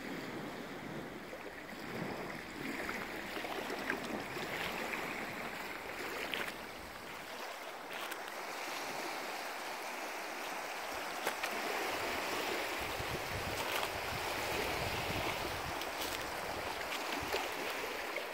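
Small waves lapping and washing on a pebble lakeshore, a steady wash of water with a few faint clicks scattered through it.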